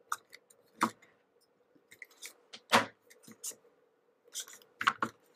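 Hard plastic playset pieces clicking and knocking together as a balcony is pushed onto a castle wall until it snaps into place: about six sharp clicks, the loudest about halfway through.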